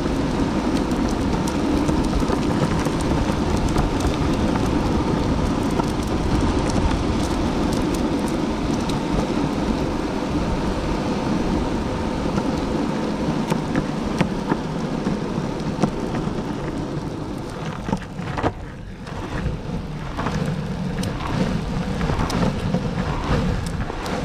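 Longboard wheels rolling on pavement: a steady, coarse rumble. It eases about 18 seconds in, with a few clicks, then picks up again.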